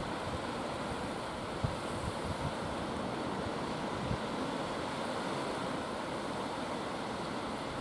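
Small waves washing steadily onto a sandy shore, with wind buffeting the microphone in low rumbling gusts.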